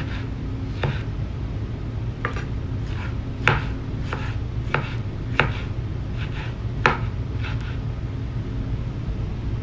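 Kitchen knife cutting tomatoes on a wooden cutting board: about six irregular knocks of the blade meeting the board, roughly one every second or so, over a steady low hum.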